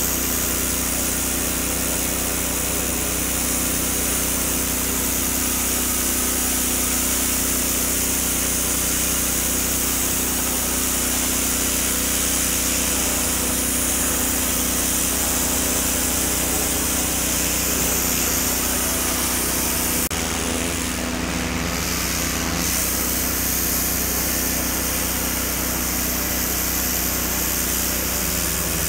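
Gas pressure washer running steadily, its small engine under the hiss of a turbo-tip spray blasting dirt and paint off a concrete foundation. The spray sound shifts briefly about two-thirds of the way through.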